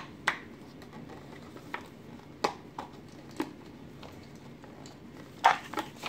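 Plastic toy parts of a Rescue Bots playset clicking and knocking as they are handled and fitted together: a few separate light clicks, and a louder short sound about five and a half seconds in.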